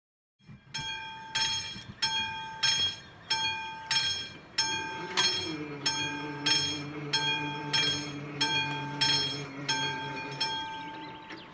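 Classic mechanical bell of an AŽD 71 level-crossing warning signal ringing its warning, a regular strike about one and a half times a second, each strike ringing on. Midway a steady low hum of the barrier drive joins in while the boom lowers. The bell stops just before the end.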